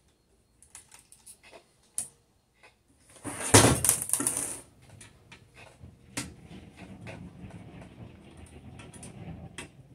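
Small clicks and taps of screws and metal parts being handled on a Videojet DataFlex Plus 6420 printer during disassembly, with a louder scraping clatter about three and a half seconds in as the printer's metal housing is turned on the bench, then lighter rubbing and clicking.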